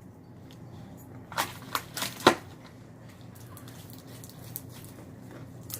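Slime being handled and kneaded: four short, sharp clicks a little over a second in, then faint scattered crackles.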